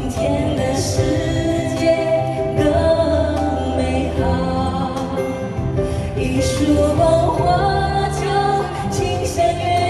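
Live pop ballad performance: singing over a full instrumental accompaniment.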